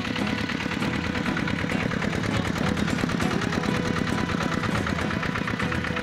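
Zubr 12 hp mototractor's single-cylinder diesel engine running steadily under load as the tractor works through boggy mud, a fast, even knocking beat.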